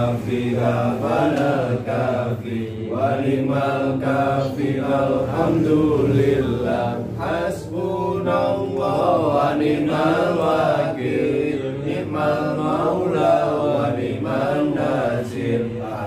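A group of men's voices chanting an Islamic prayer recitation together, continuous and droning with no pauses.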